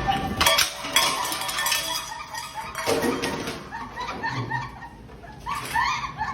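Clinking and clattering of hard objects, with sharp knocks about half a second in and again about three seconds in.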